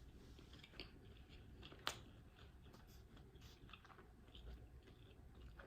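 Faint chewing of smoked sausage, with small wet mouth clicks and one sharper click about two seconds in.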